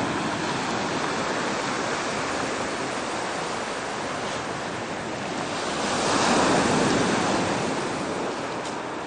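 Ocean surf rushing on the shore, one wave breaking louder about six seconds in.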